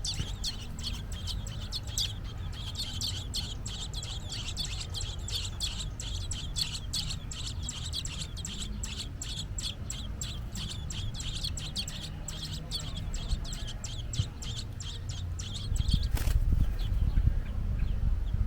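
Robins chirping: rapid, short, high calls, about four a second, kept up without a break. Near the end the chirping stops, with a single sharp sound followed by a louder low rumble.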